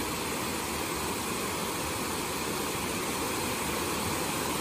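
Water pouring over a broad, low waterfall spillway: a steady, even rushing.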